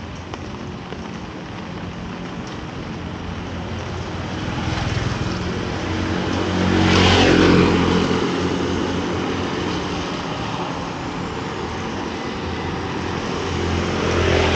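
Rain on a wet street with motor scooters passing on the wet road. One scooter's engine and tyre hiss swell to the loudest point about halfway through and then fade. Another grows louder near the end.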